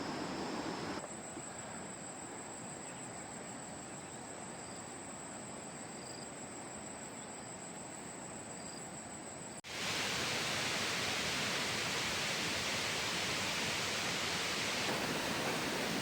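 Steady rushing of a rocky jungle stream, with a thin, high, steady insect drone over it in the middle stretch. The sound changes abruptly at about a second in and again near ten seconds in, where the water grows louder and hissier.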